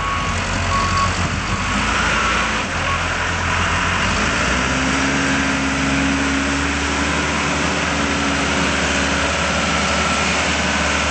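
Case 580L Series II backhoe loader's diesel engine running, with its back-up alarm beeping steadily for the first three seconds or so. About four seconds in, the engine revs up and holds at higher speed.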